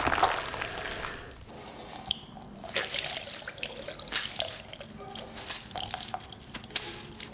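Pumpkin smash sound effect: a wet hit at the very start, then a run of wet, dripping, crackling splatters.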